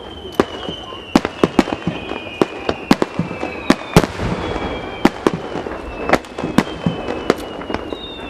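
Aerial fireworks going off in a rapid, irregular string of sharp bangs as shells burst. Several long whistles that slowly fall in pitch run beneath the bangs. The loudest bang comes about four seconds in.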